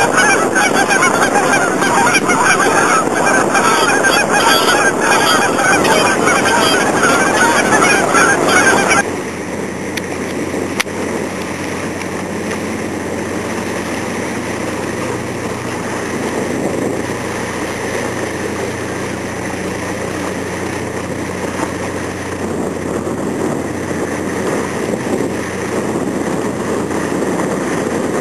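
A dense flock of gulls calling loudly over one another. About nine seconds in it cuts off suddenly, and a fishing boat's engine drones steadily and more quietly.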